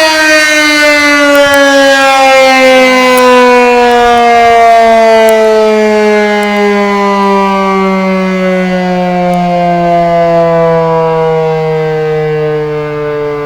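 Federal Signal Model 5A civil-defense siren winding down: one long tone with many overtones, its pitch falling steadily and its loudness slowly fading as the rotor slows after the test signal.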